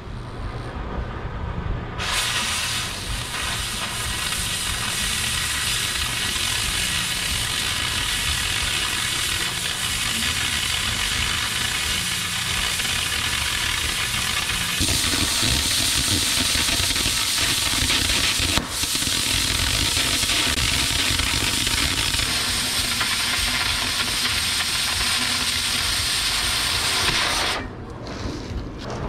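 Oxy-fuel cutting torch cutting steel plate: a loud, steady hiss of the cutting jet. It starts about two seconds in, turns brighter about halfway through, and cuts off shortly before the end.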